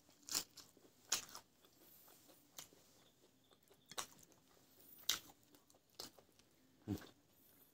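Close-miked eating sounds of a person chewing and biting food: sharp wet mouth clicks about once every second or so, six or so in all, over quiet chewing.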